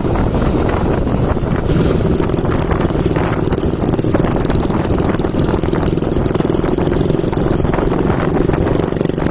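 Royal Enfield Bullet's single-cylinder engine running steadily while riding along at road speed.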